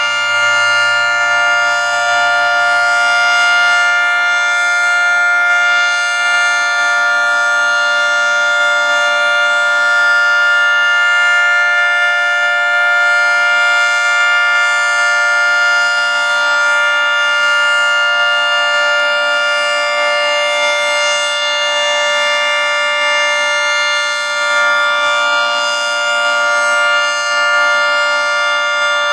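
Federal Signal 3T22 three-tone outdoor warning siren sounding a steady Alert signal: a loud chord of several tones held at constant pitch.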